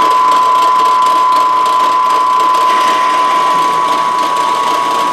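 Hole saw in a drill press cutting steel plate lubricated with tapping fluid: a steady cutting noise with a constant whine, not yet chattering.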